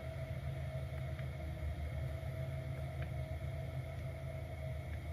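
Steady low hum of a switched-on Mazda CX-60 standing still, heard inside the cabin, with a constant faint tone over it and a couple of faint clicks.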